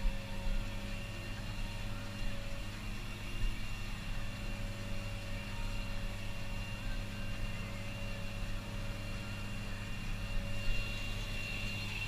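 Tractor engine running steadily while driving across a field, heard from inside the cab, with a thin steady high whine. There are a few short knocks or rattles along the way.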